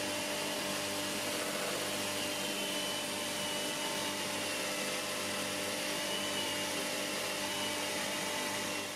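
Ryobi cordless drill spinning a sanding disc against the inside of a Leylandii bowl on a wood lathe: a steady motor whine under an even sanding hiss.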